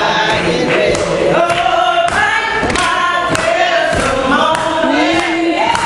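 Gospel singing, with voices carrying the melody and hands clapping along on a steady beat, about one or two claps a second.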